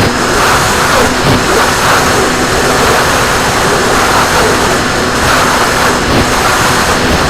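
RC plane in flight, heard from its onboard camera: steady rushing wind noise over the microphone with a faint, even hum of the motor and propeller.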